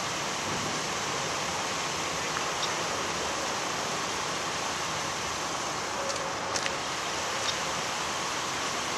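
Steady, even outdoor background hiss with no train audible, and a few faint ticks about six seconds in.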